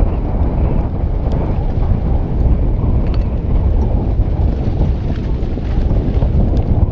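Wind buffeting the microphone: a loud, steady, low rushing rumble, with a few faint ticks now and then.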